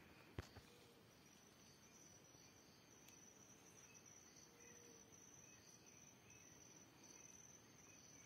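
Faint night insects, crickets or katydids: a steady high trill with softer chirps repeating a little more than once a second. A single soft click comes just after the start.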